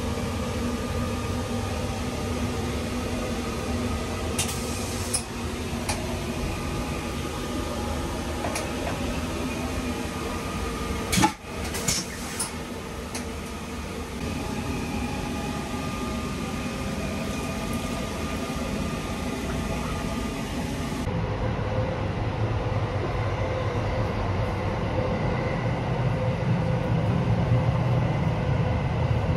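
Running noise of the Sunrise Seto sleeper train, a 285 series electric train, heard inside its toilet compartment: a steady rumble with a low hum. A few light clicks come about five seconds in and one sharp knock about eleven seconds in, and the rumble grows louder in the last third.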